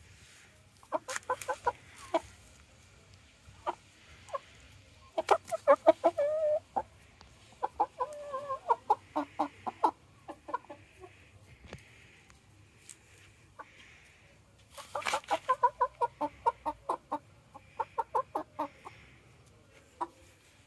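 Chicken clucking in quick runs of short clucks, four bouts, with a longer drawn-out note about six seconds in.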